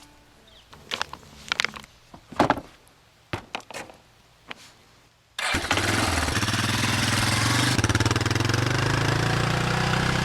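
A few scattered short knocks and clicks, then an engine comes in suddenly about halfway through and runs steadily and loudly, its pitch creeping slightly upward.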